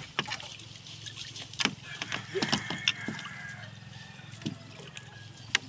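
Wet nylon fishing net being pulled through the hands and shaken over a boat's side: water dripping and splashing off the mesh, with scattered small knocks, over a faint steady low hum.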